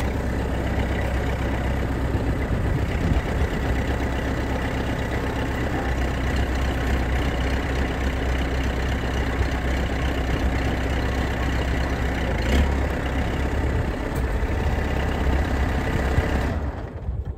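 The engine of an AECT 3500 compressed earth block machine runs steadily, driving its hydraulics while the directional valve pushes the press cylinder up to raise the plate. It shuts off near the end.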